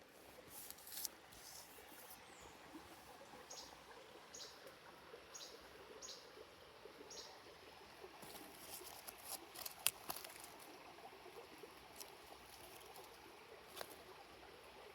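Faint crackling and rustling of dry leaves on a forest floor, with scattered sharp crackles, the loudest about ten seconds in.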